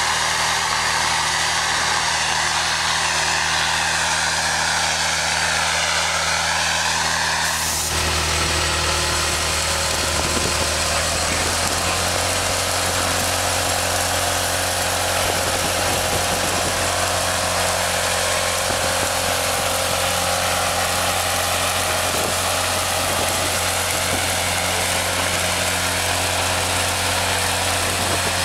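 Dura Patcher spray-injection pothole patcher running: its engine hums steadily while air rushes from the hose nozzle with a wavering whine. About eight seconds in the sound changes suddenly to a denser, steady rush as stone chips are blown through the hose onto the pothole.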